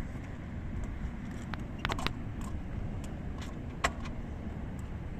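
Wind rumbling on the microphone, with a few light clicks and a jingle of keys about two seconds in and again near four seconds.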